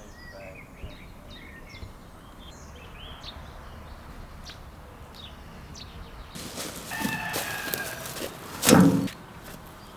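Small birds chirping, then a rooster crowing for about two seconds, loudest near the end.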